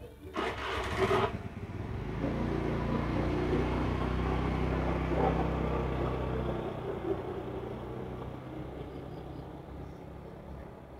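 A motor vehicle's engine running with a steady low hum that comes in about two seconds in and fades away after about six and a half seconds. A brief hiss about a second in.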